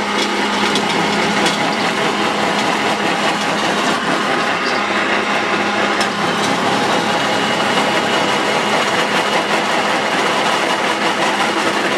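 Small pellet mill running steadily under load, its rollers pressing cut grass through the die, with a dense rattle and a few sharp clicks.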